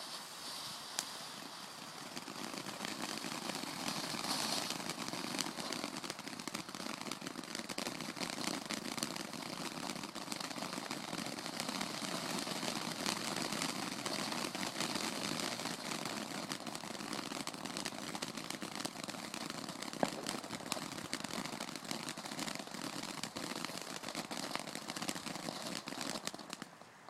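Fireworks crackling in a dense, continuous fizz of tiny pops, with a sharper single pop about a second in and another about twenty seconds in.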